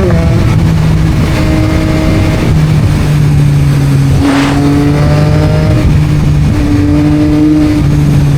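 Yamaha MT-09 three-cylinder engine through an Akrapovic aftermarket exhaust, running loud at fairly steady revs while riding, its pitch stepping slightly a few times. A brief rush of noise comes about halfway through.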